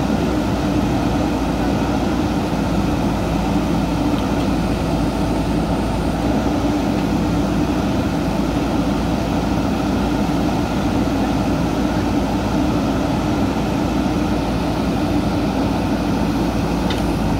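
JCB 3DX backhoe loader's diesel engine running steadily under load while its backhoe arm hydraulics lift a concrete culvert pipe.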